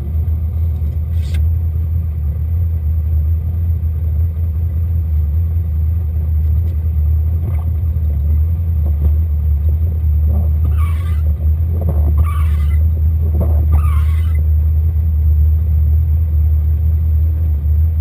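Steady low drone of the Opel Mokka rally raid car's engine heard from inside the cabin. In the middle, three short scraping sweeps about a second and a half apart, as the windscreen wiper crosses the wet, dirty glass.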